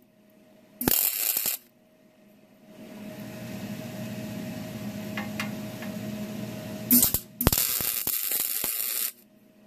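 Wire-feed MIG welder arc crackling on sheet steel in short bursts: a brief weld about a second in, then a quick blip and a longer weld of about a second and a half near the end. A low steady hum lies between the bursts.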